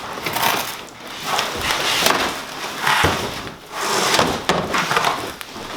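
Cardboard shipping packaging being handled and pulled around the printer: a run of short rustles and scrapes about a second apart, with a few sharp knocks.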